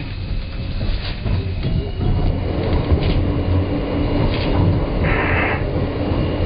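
New York City Subway M train running over the tracks, heard from on board: a steady low rumble with scattered clicks of the wheels over the rails. A thin whine comes in about two and a half seconds in, and a short hiss sounds about five seconds in.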